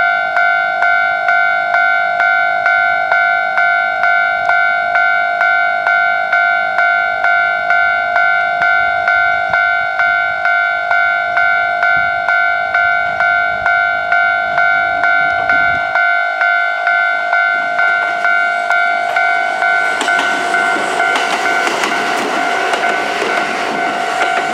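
Japanese railway level crossing warning bell ringing steadily at about two strikes a second. Near the end a passing train's running noise rises under the bell.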